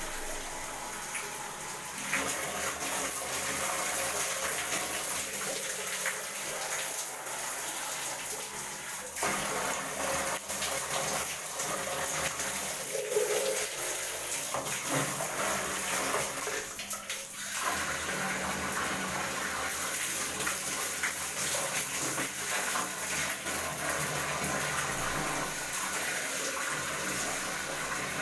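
Water running steadily from a tap, with a little splashing.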